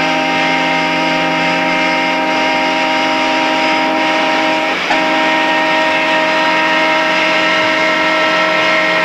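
A horn sounds a sustained chord of several notes, held steadily, with a brief break about five seconds in, after which it resumes with a changed set of notes. A steady low hum runs underneath.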